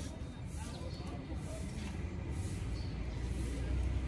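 Steady low outdoor background rumble with a faint hiss, with no racket strikes. The rumble swells slightly near the end.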